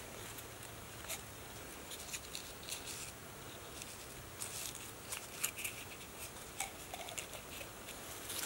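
Faint scattered clicks and rustles of hands handling a short green bamboo tube, over a steady low hiss; the clicks come more often from about halfway through.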